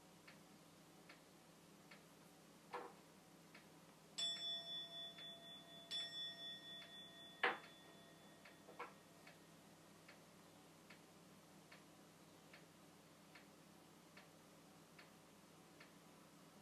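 Butsudan rin (Buddhist altar bowl bell) struck twice about two seconds apart, each strike ringing with a high, wavering tone that fades, then a sharp knock. A faint steady ticking, a little faster than once a second, runs underneath.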